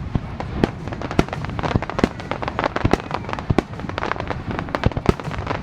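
Fireworks display: a rapid, irregular barrage of sharp bangs and crackles from aerial shells bursting, several a second.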